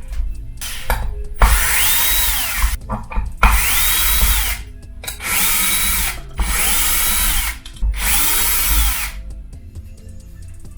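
Power drill running in five short bursts, each winding up to speed, holding and winding down, as screws are driven out to open the electric unicycle's motor wheel. Background music plays underneath.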